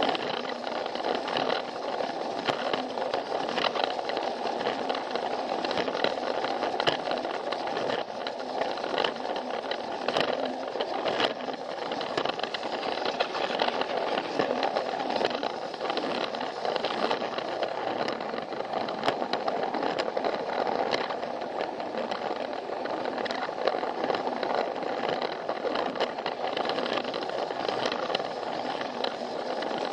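Plarail toy train's battery-powered motor and plastic gears whirring steadily, with the wheels rattling and clicking over the plastic track.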